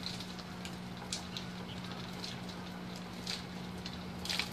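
Light rain patter and dripping water with scattered sharp ticks, over a steady low hum.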